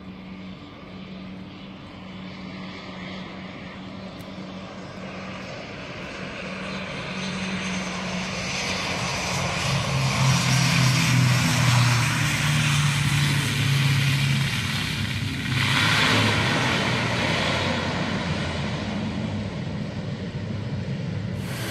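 Propeller airplane's engines droning as it comes in to land, swelling to their loudest about ten seconds in as it rolls along the runway, then running steadily.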